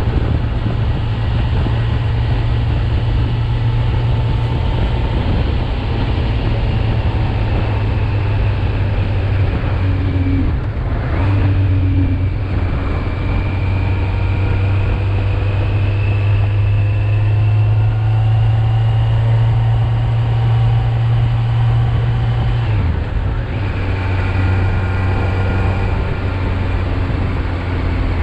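Kawasaki Z900 (2019, 35 kW A2-restricted) inline-four engine running under way, recorded as a ride. The revs dip briefly about ten seconds in, climb slowly for the next ten seconds, then drop sharply about 23 seconds in.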